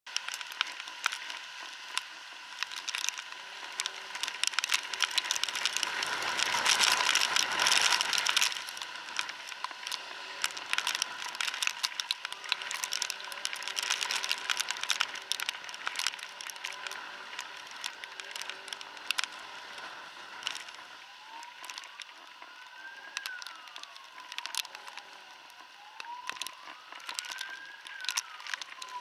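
Dense crackling of raindrops striking a helmet-mounted camera's microphone amid rainy traffic noise, with a louder rush of noise about six to eight seconds in. In the last third a siren starts wailing in slow rises and falls.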